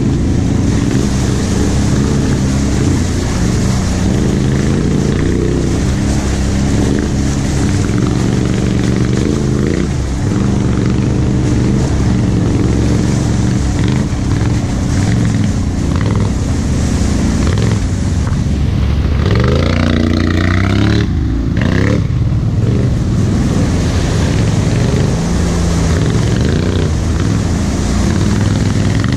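Quad bike (ATV) engine running as it is ridden through mud, its pitch rising and falling with the throttle, with a marked rev-up about two-thirds of the way through.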